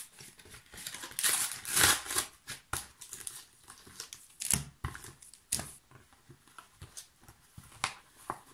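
Plastic-and-cardboard blister pack of Pokémon cards being pried and torn open by hand: irregular crinkling and crackling of stiff plastic, with a few sharp cracks.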